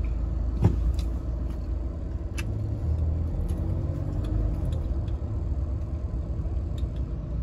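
Mahindra Thar driving, heard from inside the cabin: a steady low engine and road rumble, with one short knock under a second in.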